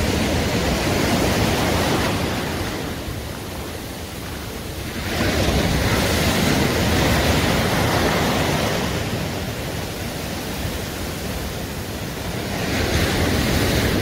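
Sea surf breaking and washing up a pebble beach in foam, a steady rushing that swells and ebbs with each wave, about every five seconds.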